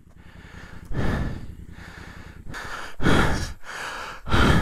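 A person breathing hard and out of breath, with three loud heavy breaths: about a second in, around three seconds in, and near the end.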